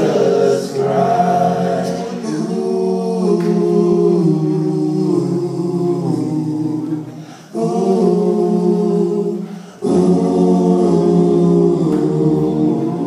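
Male a cappella group of six singing close harmony into microphones, holding sustained chords. The singing breaks off briefly twice between phrases, around the middle and about three quarters of the way through.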